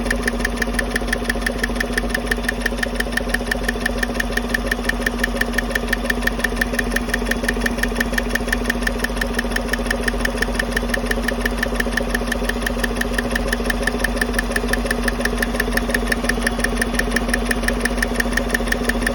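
2015 Chevy Silverado's 5.3-litre V8 idling with its passenger-side rocker cover off, with a fast, even ticking from the valvetrain, about five to six ticks a second. The mechanic traces the tick to a lifter on one of the cylinder-deactivation (DOD) cylinders and suspects that lifter or its roller rocker.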